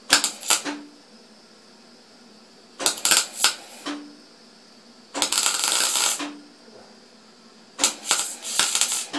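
MIG welding arc crackling in four short bursts of about a second each, laying stitch welds on thin steel plate at voltage setting B4 with reduced argon, each burst followed by a brief low hum from the welder. At this setting the arc is blowing through the thin metal.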